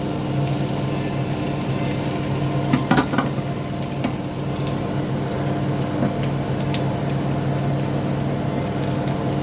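Onions and sliced potatoes sizzling in olive oil in a frying pan, over a steady low hum, with a few short utensil knocks about three seconds in.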